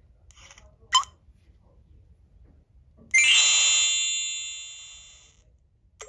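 Touch-screen burglar alarm panel: a short key-press beep about a second in, then at about three seconds a louder chime-like confirmation tone that fades away over about two seconds.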